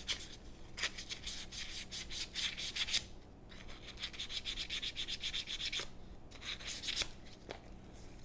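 Hand sanding with a folded strip of 320-grit sandpaper, rubbed in quick back-and-forth strokes over the seam between a revolver's two wooden grip panels to knock off the high spots and even the joint. The strokes come in runs, with brief pauses about three and six seconds in.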